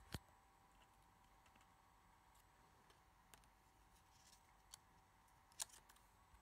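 Near silence broken by a few small clicks and taps as fingers handle the tablet's internal ribbon cables and connectors. The sharpest click comes just after the start, with fainter ones near the middle and a quick double click toward the end.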